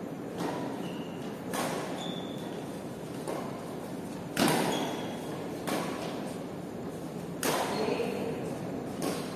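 Badminton rally: rackets striking the shuttlecock about seven times at irregular intervals of roughly one to two seconds, each hit sharp and echoing around a large hall, the loudest about four and a half seconds in, over a steady background hiss.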